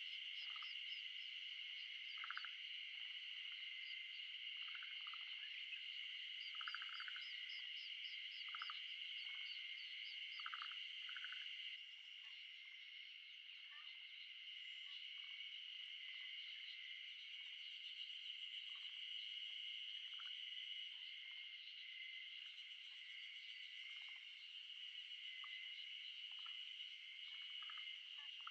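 Steady high-pitched chorus of calling frogs or insects, with many short chirps and quick trills over it; it eases slightly about twelve seconds in.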